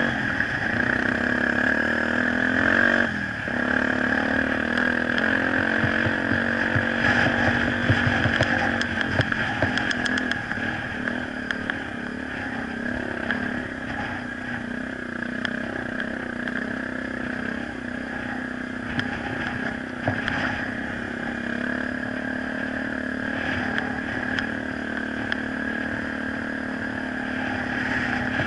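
Dirt motorcycle engine running steadily under way, heard from on board the bike. There are clicks and rattles in the first third, and the engine is a little quieter after about ten seconds.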